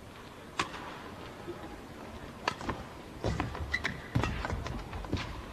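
Badminton rally: sharp racket strikes on the shuttlecock about a second apart, with players' shoes squeaking and thudding on the court, busier in the second half.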